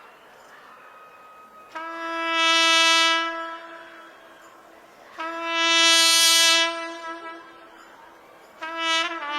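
Solo trumpet playing two long held notes on the same pitch, each swelling up and then fading away, followed by a few shorter notes near the end.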